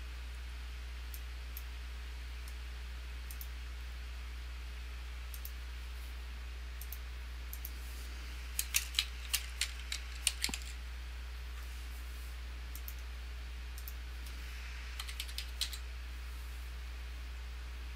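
Computer keyboard typing in two short bursts, one about halfway through and a shorter one near the end, with occasional single mouse clicks in between, over a steady low hum.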